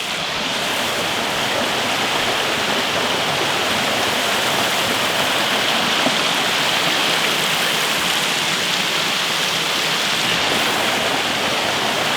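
Waterfall pouring into a woodland stream: a loud, steady rush of falling water close to the microphone.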